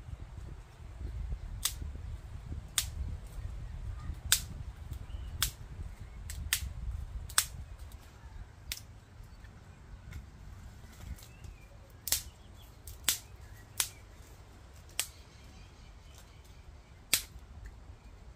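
Dry twigs snapping as they are broken by hand for a twig stove: a series of sharp cracks at irregular intervals, roughly one a second, over a low rumble.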